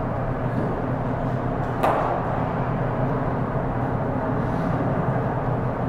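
A single sharp knock about two seconds in, a cricket ball struck by the bat, over a steady low hum.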